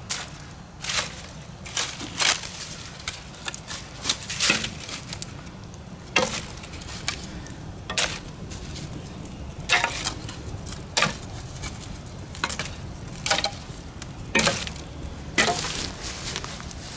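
A small kindling fire of dryer lint and palm fronds crackling, with sharp irregular pops and snaps about a second or two apart.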